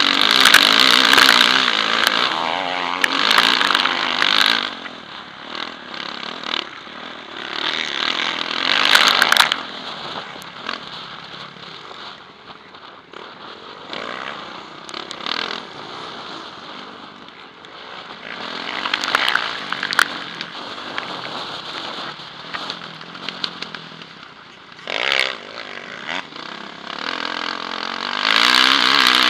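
Yamaha motocross bike's engine heard close up from the rider's helmet, revving up in rising sweeps under full throttle and dropping back when the throttle is rolled off, again and again around a dirt track. The hardest pulls come near the start, about nine seconds in, around twenty seconds in and again at the end.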